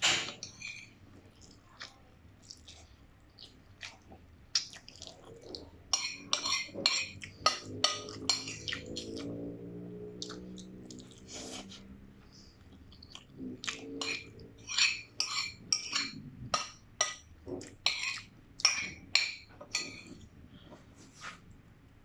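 Metal cutlery clinking and scraping against a bowl while eating noodles, in quick runs of sharp taps, mostly in the middle and again in the second half.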